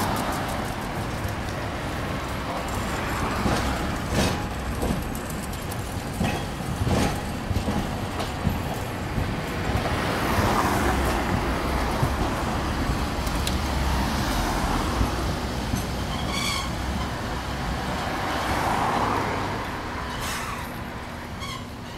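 Hakodate city tram no. 9602, a two-section low-floor articulated car, running past on street rails amid passing road traffic, with a steady rumble that swells as it goes by and a few sharp knocks.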